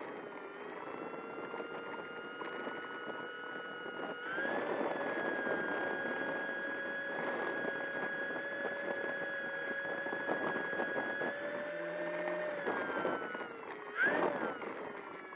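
Electric motor and propeller of an E-flite 1.2 m F4U Corsair RC plane whining at low throttle as it taxis. The pitch steps up about four seconds in and drops back near the end, with a quick sharp rise and fall just before the end.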